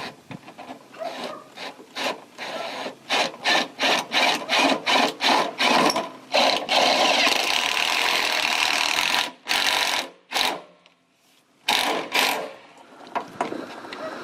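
Cordless drill driving a gutter screw through its bushing: the motor is pulsed in a quick run of short bursts, then runs steadily for about three seconds, stops, and gives a few more short bursts near the end.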